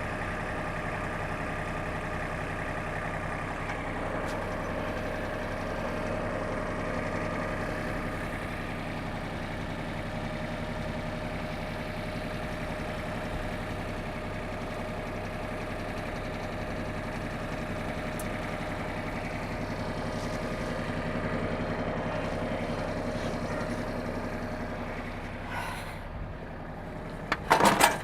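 Mahindra Max series compact tractor's diesel engine running steadily at idle, with a few sharp metallic clanks near the end.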